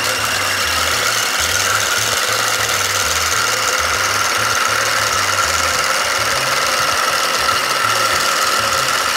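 Hand-held immersion (stick) blender running steadily in a tall beaker with a continuous motor whine. It is whipping egg yolk into mayonnaise as melted ghee is poured in.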